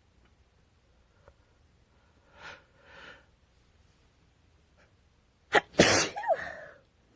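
A woman with a cold sneezing: two soft catching breaths in, then one loud sneeze about five and a half seconds in, ending on a short falling voiced tail.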